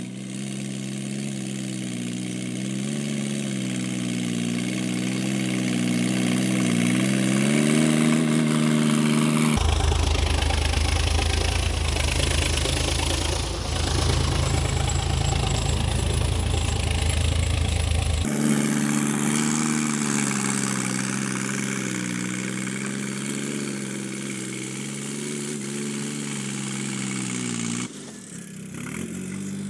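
Sonalika DI 50 RX Sikander tractor's diesel engine running steadily under load while driving a rotavator through field soil, its pitch rising and falling slowly with the load. For several seconds in the middle, right beside the rotavator, a heavy low rumble replaces the engine note.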